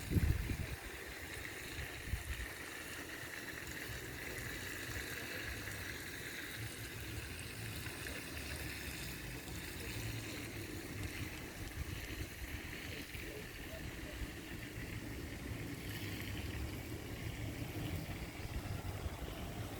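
An open wood fire burning under a cooking pot, a steady rushing hiss, with an uneven low rumble of wind on the microphone.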